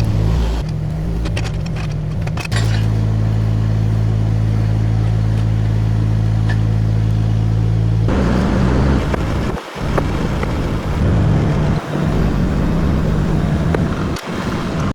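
Mini excavator engine running at a steady speed; about eight seconds in the sound turns harsher and noisier, with a few brief dips, as the machine goes to work.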